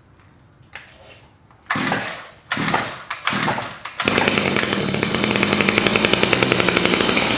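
RedMax BCZ260TS string trimmer's small two-stroke engine being pull-started by its recoil rope after a tune-up: a few quick rasping pulls, then it catches about four seconds in and runs steadily with a fast even beat.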